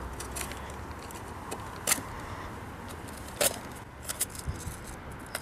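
Hands working at a small fingerboard box to open it: a string of sharp clicks and taps, the loudest about two seconds and three and a half seconds in, with smaller ones near the end.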